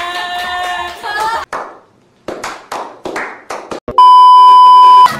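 A woman's voice holds a high exclaimed "ah" for about a second and a half, followed by a quick run of handclaps. Then comes a loud, steady test-tone beep lasting about a second, the kind played with TV colour bars, used here as an editing transition.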